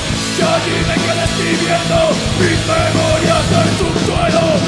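Live heavy metal band playing: distorted electric guitars, bass and drums, with a male singer's vocal line coming in about half a second in.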